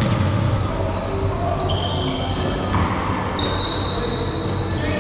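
Dodgeballs bouncing and slapping on a hard hall floor during a dodgeball game, with repeated thuds and high squeaking tones, in a reverberant hall.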